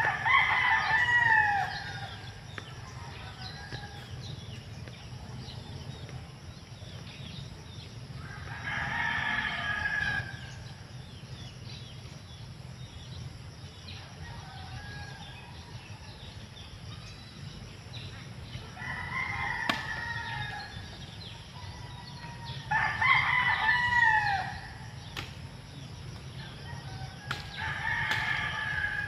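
Rooster crowing five times, each crow a second or two long with a falling end.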